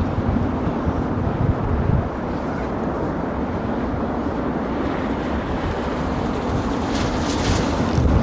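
Wind buffeting the microphone over a steady broad roar of jet engines from an airliner that has just landed. The buffeting is heaviest in the first two seconds.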